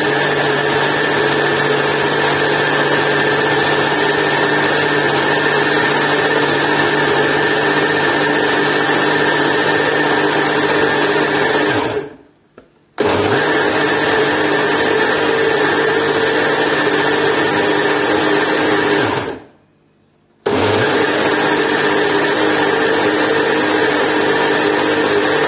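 Kenwood food processor's blender jug running at a steady whir, blending a thick yogurt mixture. The motor is switched off briefly about twelve seconds in, starts again, then stops for about a second near twenty seconds before running once more.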